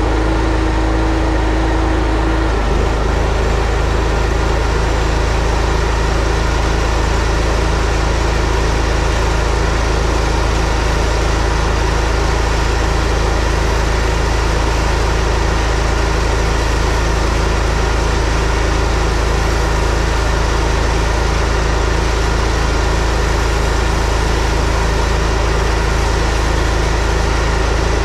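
Pressure washer's gas engine running steadily with a loud, even hum. Its note shifts about two and a half seconds in, then holds steady.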